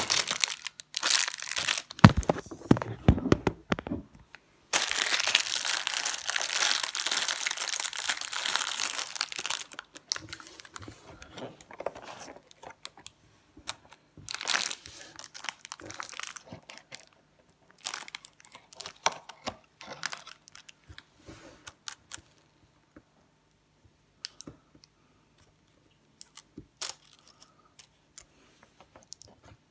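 A small clear plastic bag of LEGO pieces crinkles loudly as it is torn open and handled for about the first ten seconds. After that come scattered small clicks of plastic bricks being picked up and fitted together, growing sparser toward the end.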